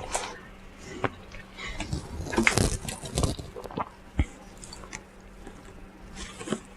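Close-miked mouth sounds of a person eating fried chicken: chewing and lip smacking, with scattered sharp clicks and a busier stretch of chewing about two and a half seconds in.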